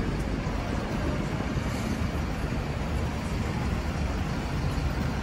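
Busy city-street road traffic: cars and lorries driving past in a steady, low rumble.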